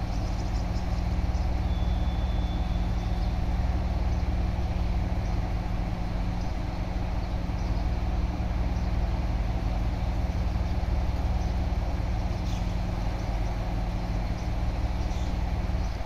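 JR Shikoku Class 1200 diesel railcar's underfloor diesel engine idling steadily at a station platform, a low, even hum.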